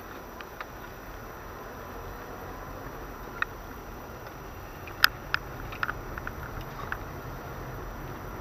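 Car driving slowly, heard from inside the cabin: a steady low engine and road rumble, with a few scattered sharp clicks from about the middle on, the loudest about five seconds in.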